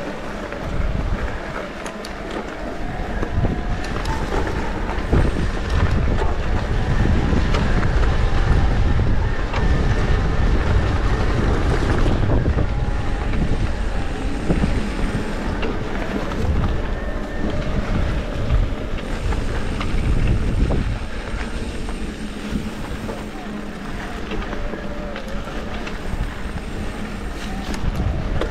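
Wind buffeting the microphone of a camera on a moving mountain bike, with tyres rolling and rattling over a dirt trail.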